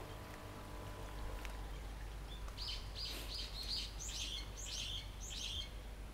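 A small bird calling: a quick run of four short high chirps about two and a half seconds in, then three longer notes that fall in pitch, over steady low background noise.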